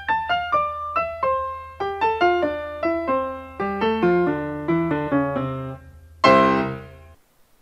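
Short piano intro jingle: a run of single notes stepping downward and quickening, over a low steady hum, ending in a loud full chord about six seconds in that rings away.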